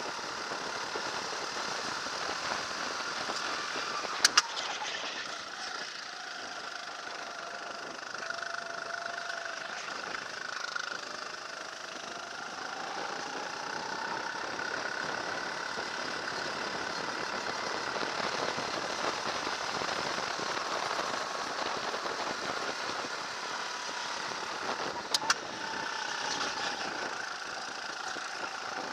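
Racing kart's engine heard from a camera mounted on the kart, its pitch rising and falling with the throttle through the corners. Two short sharp clicks, about four seconds in and again near the end.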